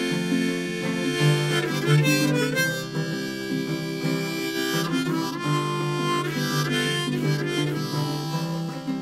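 Low C harmonica played in a neck rack, carrying the melody of an instrumental break in held and changing notes over acoustic guitar accompaniment.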